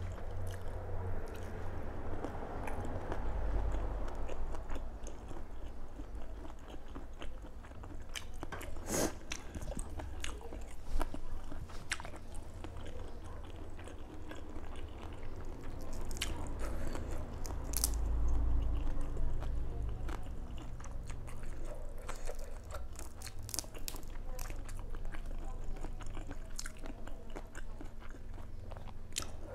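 Close-miked chewing and biting of shrimp, with crisp crunches and clicks now and then, the sharpest about nine and eighteen seconds in, and the crackle of shrimp being pulled apart by hand.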